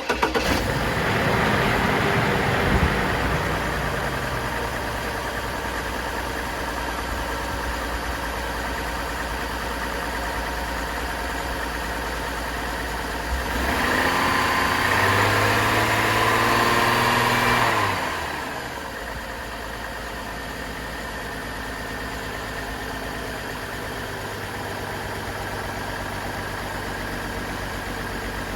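A 2004 Chevrolet Trailblazer's engine, just started after a coil pack replacement, running at a fast idle. About halfway through it is revved once for a few seconds, rising and then dropping back, and it then settles to a steady idle.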